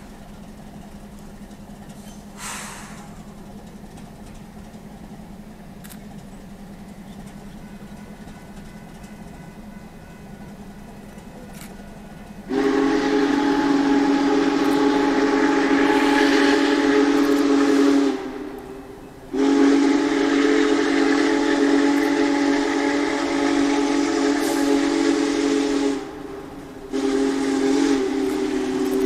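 Union Pacific Big Boy 4014's steam whistle blowing a chord of several pitches: two long blasts and a third starting near the end. Before the whistle there is a faint steady hum for about twelve seconds.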